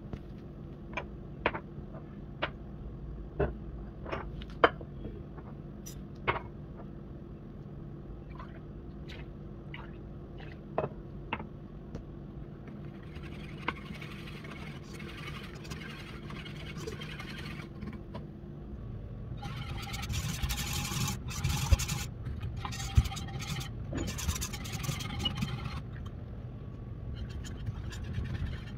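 Kitchen handling sounds: light knocks and clicks of glass mugs and a saucepan on a stone countertop over a low steady hum. Then, about halfway through, two longer stretches of rustling, scraping noise as ingredients are poured into the pan.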